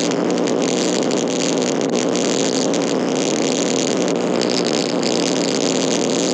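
Old-school cartoon electricity sound effect: a loud, steady, harsh electric buzz that runs unbroken.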